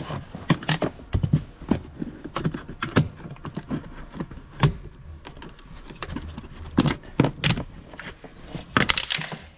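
Irregular clicks and knocks of hard objects being handled, several a second with a few louder knocks.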